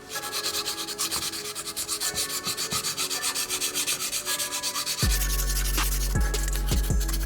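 Sandpaper rubbing back and forth on a diecast model car part in quick, even strokes, several a second. About five seconds in, a deep steady bass with repeated thumps comes in under it.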